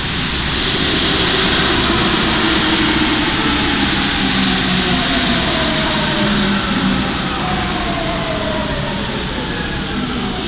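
RATP MP14 rubber-tyred metro train pulling into the station and braking to a stop. A loud rushing noise comes as it passes at speed, then the electric motors whine, falling steadily in pitch as it slows.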